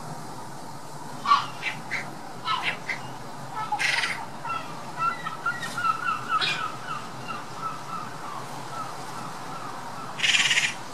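Eurasian magpies chattering in harsh, rattling bursts, the longest near the end: their alarm call, given when mobbing a hawk on its kill. A quick run of short, higher bird calls fills the middle.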